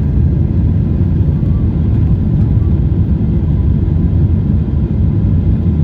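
Steady, loud cabin rumble of a Boeing 777-300ER's GE90 engines at takeoff thrust, heard from inside the passenger cabin.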